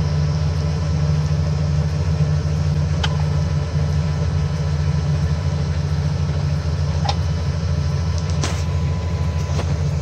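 A steady low engine hum, like a vehicle idling, unchanging throughout, with a few faint clicks. The key is turned to start and no starter cranking is heard.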